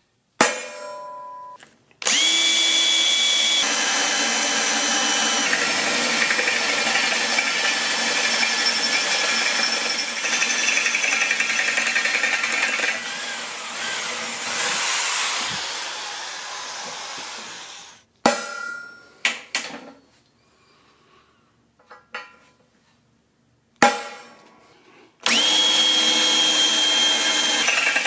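A hammer strikes a steel punch once, marking the hole. Then a drill press bores through quarter-inch steel plate at a welded corner, the twist bit cutting with a steady high whine for about sixteen seconds. It stops, a few sharp knocks follow, and drilling starts again near the end.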